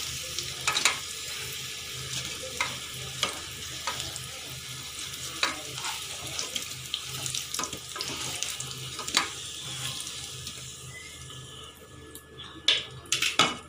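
Hot mustard oil sizzling in a kadai of fried potatoes, with clicks and scrapes of a wooden spatula as the pieces are lifted out onto a steel plate. The sizzle dies down near the end, where a few sharper clinks come close together.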